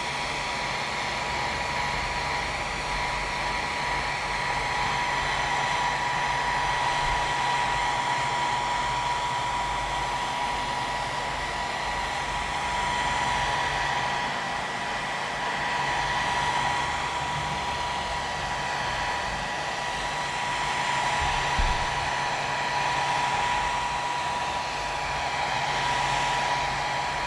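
Hot-air blower running steadily, with a whoosh of air and a constant high whine from its fan motor, heating the edge of a phone's back glass to soften the adhesive beneath it.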